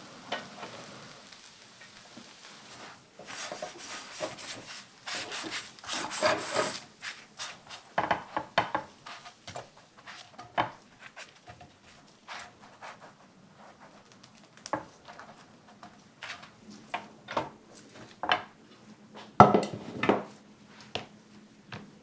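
Baguette slices toasting in a nonstick frying pan: a low sizzle with many light taps and scrapes as the slices are turned over by hand. Near the end comes a louder knock as toasted bread is set down on a wooden cutting board.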